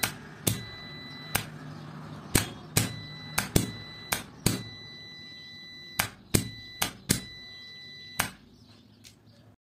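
Electrical contactor clacking in and out about a dozen times at an uneven pace. Between the clacks a multimeter's continuity beeper sounds a steady high beep over a low hum. The beep cuts off after the last clack, near the end.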